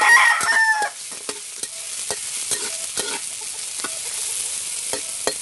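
Chopped garlic, ginger, onion and chili sizzling in hot oil in a steel wok as a spatula stirs them, with quick clicks and scrapes of the spatula against the pan.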